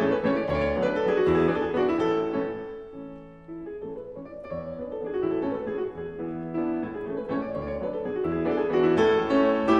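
Background piano music. It dies away about three seconds in, then builds back up.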